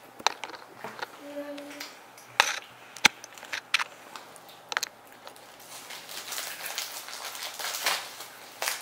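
Plastic wrapper of a wafer packet crinkling as it is handled close by: a string of sharp crackles through the first half, then a denser rustle near the end.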